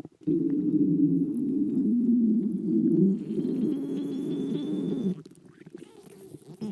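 A stomach growling: a long, low, gurgling rumble that wavers in pitch for about five seconds, then fades. A short second rumble comes near the end.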